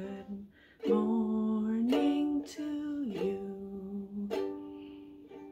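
Woman singing to a strummed Kala ukulele; near the end the last chord rings and fades away.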